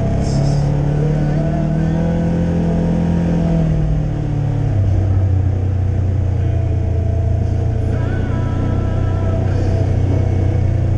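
Side-by-side UTV engine running steadily while driving a dirt trail; its low note drops about four and a half seconds in.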